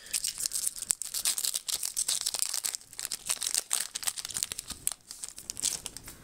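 Foil wrapper of a Pokémon trading card booster pack being torn open and crinkled in the hands: a dense, crackly rustle that dies away shortly before the end.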